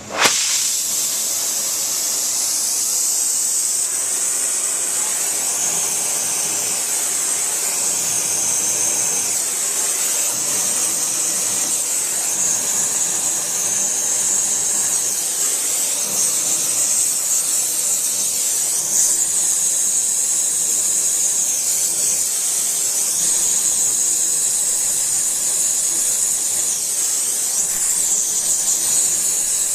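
A gas torch flares on suddenly and then burns with a steady, loud hiss, used to light diesel fuel that won't catch quickly.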